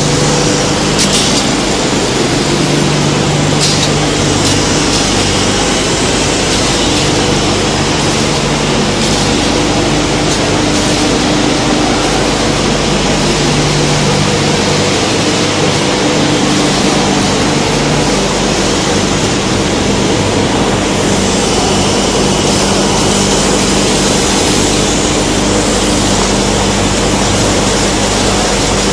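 Foam tape coating machine running: a loud, constant rushing hiss with several steady hums underneath that fade in and out, and a few light clicks near the start.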